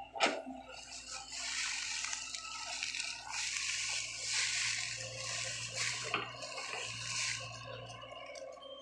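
Sany SY55C mini excavator's diesel engine running while its bucket digs and turns over waterlogged peat mud, with a long wet sloshing of mud and water from about a second in until near the end. A single sharp knock comes just after the start.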